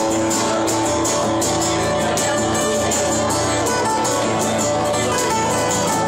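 Live band playing: two strummed acoustic guitars over a drum kit, with cymbal strikes keeping a steady beat.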